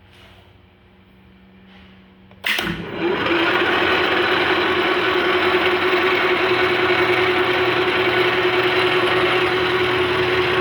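Sheldon 15x42 gear-head engine lathe switched on about two and a half seconds in: a sudden start, then its 3 hp motor and headstock gearing run steadily, with a steady tone over a wide mechanical whir.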